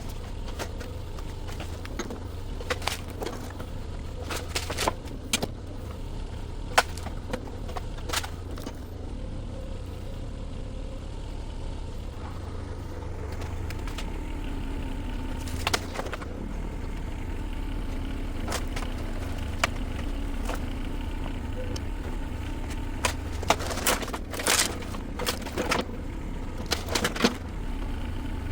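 Mini excavator's diesel engine running steadily as it tears into an old wooden barn, with scattered sharp cracks and knocks of timber breaking, busiest near the end. The engine note rises a little about halfway through as the machine works harder.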